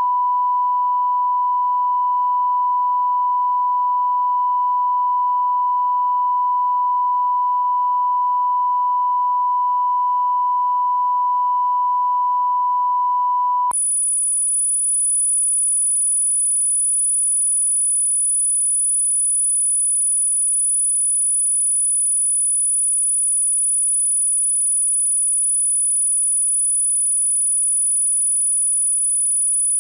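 Tape alignment tones at the head of an analog master-tape transfer. A steady, pure mid-pitched test tone switches abruptly about fourteen seconds in to a steady, pure and much higher-pitched tone.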